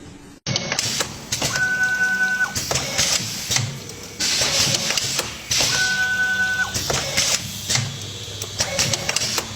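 A machine running in a repeating cycle about every four seconds: mechanical clattering with a steady high whine or tone lasting about a second in each cycle. It starts abruptly about half a second in.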